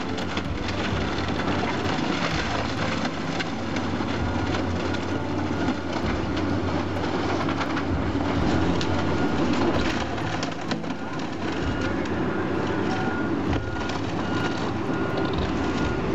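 Caterpillar hydraulic excavator's diesel engine running under load as its grapple tears into a wood-framed building, with wood splintering and debris crashing down in many sharp cracks over a steady rumble.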